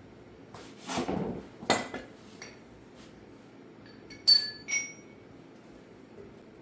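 Tools and metal parts being handled: a short scrape and a knock between one and two seconds in, then two sharp ringing metal clinks about half a second apart just past four seconds.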